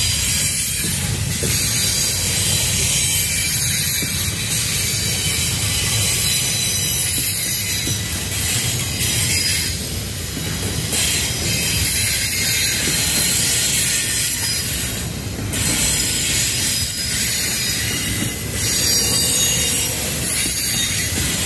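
Freight train of an intermodal container train rolling past at speed. Steady low rumble of steel wheels on rail with a constant high metallic hiss and squeal from the wheels, dipping slightly in loudness now and then.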